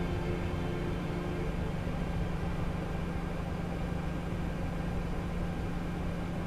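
Steady aircraft cockpit noise: a constant low hum over rumble and hiss.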